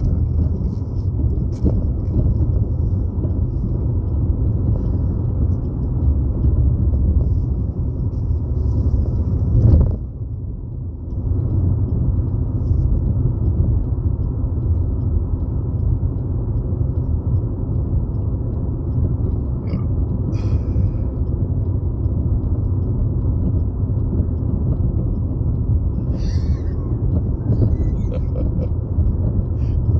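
Steady low rumble of road and engine noise from a car cruising on a highway. About ten seconds in it briefly gets louder, then drops quieter for about a second before settling back.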